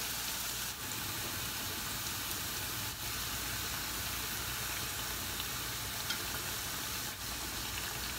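Halved bread crusts deep-frying in vegetable oil heated to about 180 °C, a steady sizzle of bubbling hot oil.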